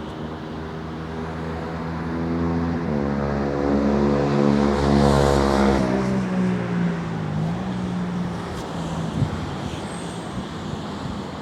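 A motor vehicle driving past: its engine grows louder over the first few seconds and is loudest about five seconds in. Its pitch then drops as it goes by, and it fades away.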